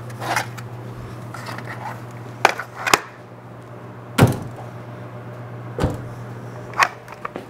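Several sharp knocks and clicks of small metal parts and tools being handled and set down at a workbench, the loudest about four seconds in, over a steady low hum.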